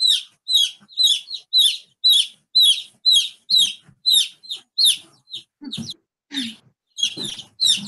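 Baby chick peeping, about two short, high, falling peeps a second, with a short break near the end.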